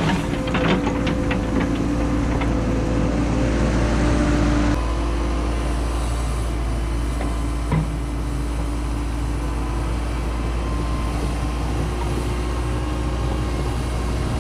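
Cat 314E excavator's diesel engine running steadily under work, with a higher steady hum that drops away about a third of the way in. A few knocks sound at the start and a single sharp knock about halfway.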